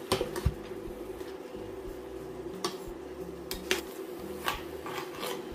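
Metal spoon stirring and scraping a wet stir-fry of amaranth greens, minced pork and egg in a stainless-steel pan, with several separate clinks and knocks against the pan. A steady hum runs underneath.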